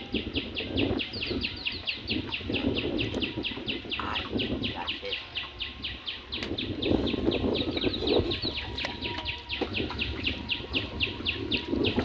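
A steady, rapid run of high chirps, each falling quickly in pitch, about five a second and unbroken throughout, from a small calling animal, over a low rushing noise.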